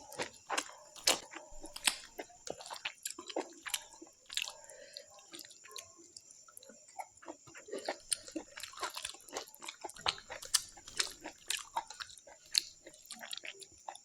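A person chewing pork curry and rice with the mouth open: irregular wet smacking and chewing clicks, many a second.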